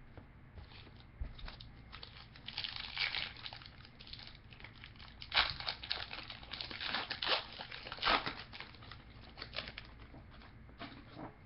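A trading-card pack wrapper being torn open and crinkled in the hands. It comes as irregular crackling bursts, busiest through the middle and dying down near the end.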